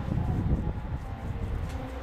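Diesel rail vehicle's engine running with a steady low rumble and a faint hum over it.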